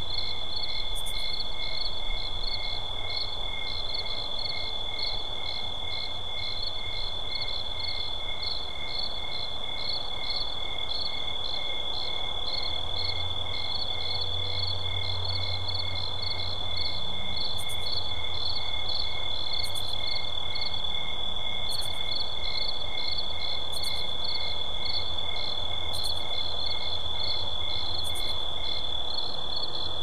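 Suburban night ambience: a chorus of night insects, one giving a steady high trill while others chirp in a regular rhythm at two pitches, over a low distant rumble. The lower chirping stops shortly before the end.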